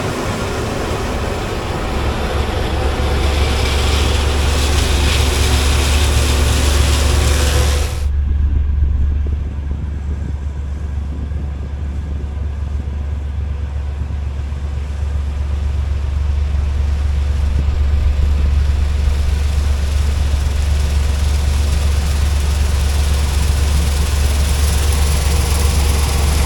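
Combine harvester engine running steadily with a strong low drone. About eight seconds in, the higher, hissing part of the sound drops away sharply, leaving mostly the low engine hum.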